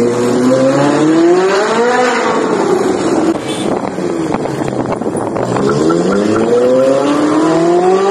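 Ferrari 458 Italia's V8 with an aftermarket F1 exhaust, revving up hard twice. The pitch climbs for about two seconds, falls away into a rougher stretch, then climbs again from a little past halfway.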